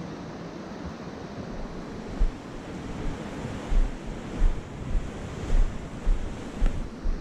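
Ocean surf with wind buffeting the microphone in irregular low thumps.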